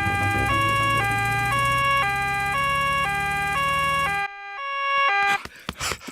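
Cartoon two-tone 'nee-naw' siren on the doctor's car as it drives to the school, switching between a high and a low note every half-second over a low engine hum. The hum cuts out about four seconds in, and the siren stops a second later.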